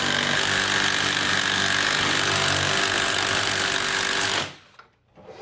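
Small impact wrench hammering steadily on a 13 mm hub-assembly bolt, then stopping about four and a half seconds in; the bolt does not break loose.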